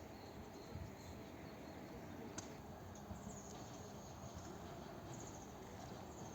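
Faint outdoor background noise with a low steady rumble, a sharp click about two and a half seconds in, and a few short high chirps near the middle and again near the end.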